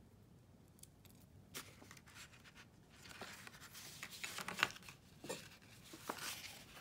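Paper and cardstock rustling and crinkling faintly, with small clicks and taps, as a tiny metal brad fastener is worked by hand through an eyelet hole. Mostly quiet at first, with a single click, and the rustling picks up about halfway.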